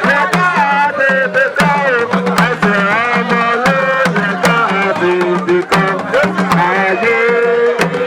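Music: a lead melody sliding up and down in pitch over a steady low note, with frequent hand-drum strokes.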